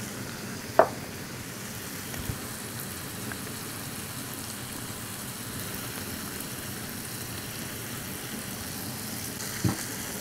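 Beef roast with sliced onions and peppers sizzling steadily in a frying pan on the burner. There is a sharp knock about a second in and a clink near the end as a glass lid is brought down onto the pan.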